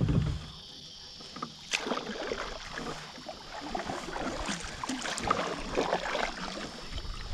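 Kayak paddling: a Magellan double-bladed paddle dipping and stroking through the water in irregular splashes, with a sharp knock a couple of seconds in.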